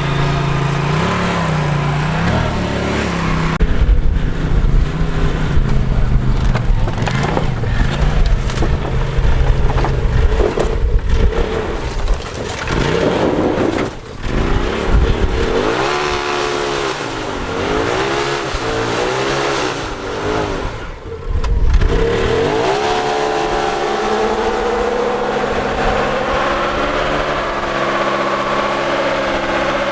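A vehicle engine running and revving, with a heavy low rumble for the first ten seconds or so, then its pitch rising and falling again and again through the rest.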